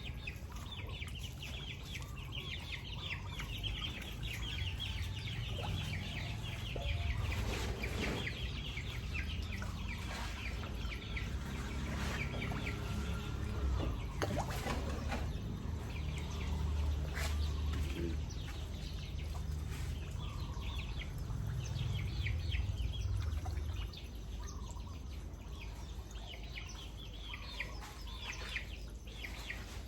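Chickens clucking and calling with many short, rapid notes throughout, over a low steady rumble.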